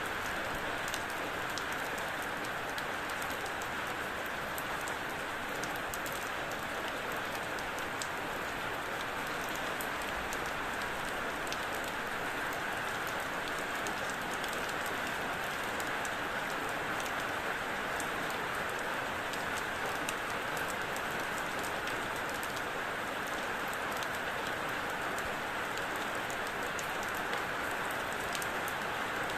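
Steady rain falling, an even hiss dotted with many small sharp drop ticks.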